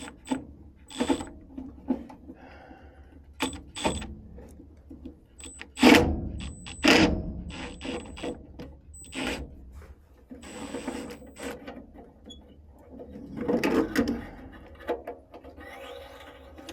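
Hand tools and furnace parts being handled: a string of clicks, knocks and clatter, with the loudest knock about six seconds in and spells of scraping or rustling later on.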